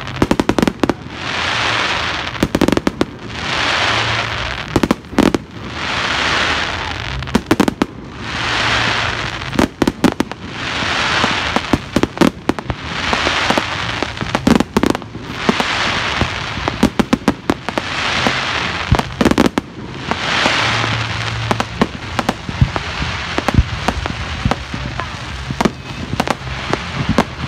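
Fireworks going off in a steady barrage. About every two seconds a hiss swells and fades, then a cluster of sharp bangs and crackles follows, a dozen or so times over.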